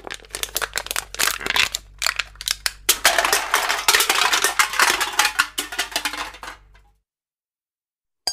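Hard objects clattering and clinking together in many quick, irregular knocks over a faint low hum; it stops about seven seconds in.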